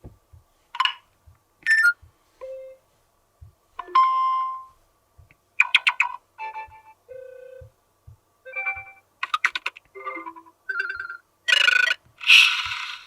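Cubot R19 smartphone notification tones played one after another: about a dozen short chimes and jingles, each under a second, with brief pauses between them and faint ticks in the gaps.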